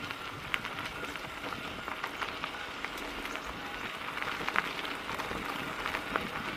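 Mountain bike rolling over a rough trail: steady tyre noise with many small scattered clicks and rattles.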